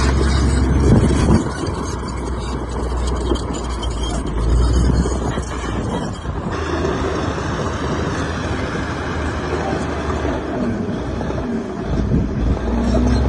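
Heavy diesel earthmoving machinery running steadily, with a deep engine drone that drops off about a second and a half in.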